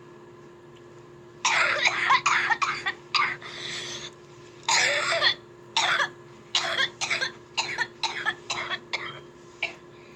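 A person in a coughing fit: after about a second and a half of quiet, a run of harsh coughs comes in quick clusters of several a second, thinning out into shorter, weaker coughs near the end.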